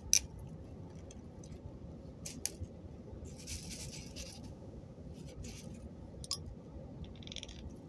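Small plastic beads and bracelet-making materials being handled: a few faint, scattered clicks and rustles, with a short hiss about three and a half seconds in.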